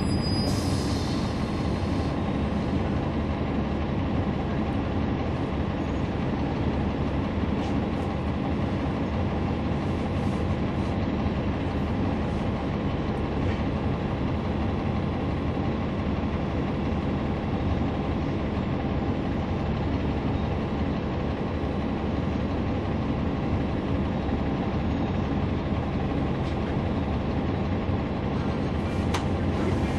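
Cummins ISL9 inline-six diesel of a 2011 NABI 40-SFW transit bus running steadily, heard from on board inside the bus together with road noise, the engine note holding level without revving up or down.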